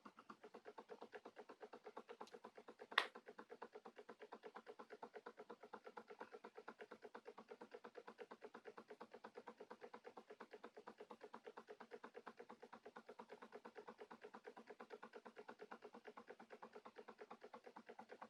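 Small Stirling engine running steadily and faintly, with a regular rhythmic ticking of about five strokes a second. A single sharp click about three seconds in.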